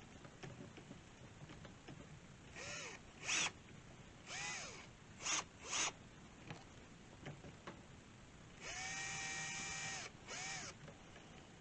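A power drill run in several short trigger bursts, its motor spinning up and winding down each time, then one steadier run of about a second and a half near the end and a last short burst. It is drilling the hole for a quick-release sling stud in an air rifle's stock.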